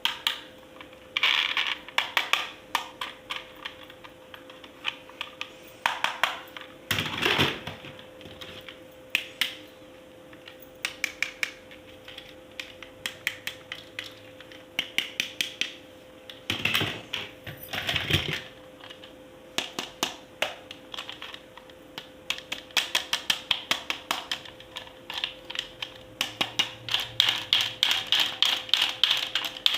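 Plastic toy parts and packaging being handled: irregular clusters and quick runs of sharp clicks and rattles, busiest near the end, over a faint steady hum.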